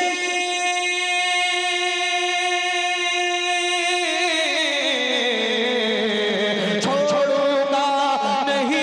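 Naat singing: one long held note for about four seconds, then a slow downward slide with wavering vibrato, and a new sung phrase starting near the end.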